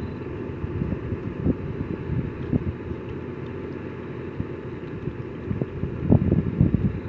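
Wind buffeting an outdoor microphone, a low uneven rumble, with a few faint knocks.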